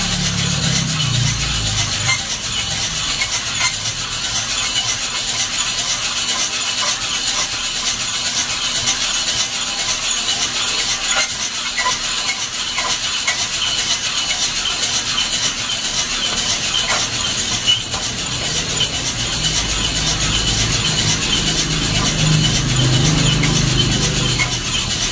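Coffee beans tumbling and rasping inside a hand-cranked wire-mesh drum roaster as it is turned, a steady dry rustle with fine rapid ticks.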